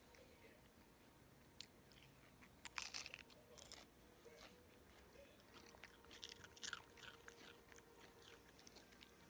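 Small dog biting and chewing a crisp chip: a few faint, sharp crunches, the loudest about three seconds in, with another bout of chewing about six to seven seconds in.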